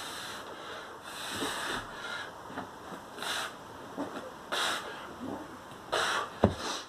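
A man breathing hard from exertion during repeated burpees, with four sharp, breathy exhalations about a second and a half apart. A single thud near the end, from his body landing on the carpeted floor.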